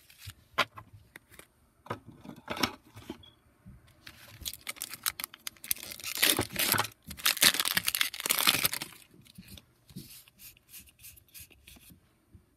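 Foil booster-pack wrapper crinkling and being torn open by hand, loudest in a stretch of about four seconds in the middle. Trading cards click and slide against each other before and after.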